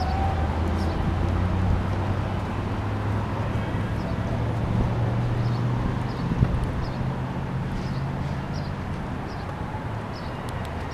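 Steady low mechanical hum under outdoor background noise, with one sharp knock about six and a half seconds in.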